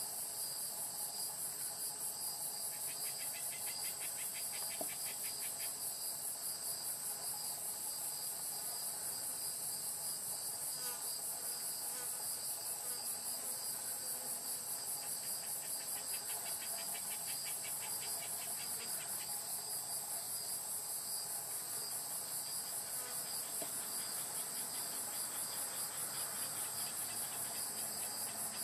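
Chorus of singing insects: a steady, rapidly pulsed high trill throughout, joined now and then by a second, lower pulsed trill.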